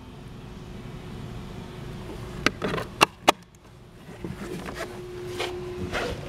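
Hard plastic sun cover being pressed onto a Lowrance fish finder: three sharp plastic clicks in quick succession about halfway through, then a couple of lighter knocks, over a faint steady hum.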